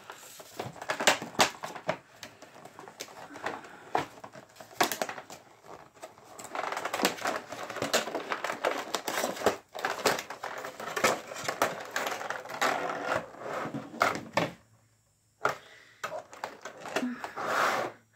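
Clear plastic clamshell packaging crinkling and clicking as it is handled and pulled apart, in dense irregular bursts with a brief lull near the end.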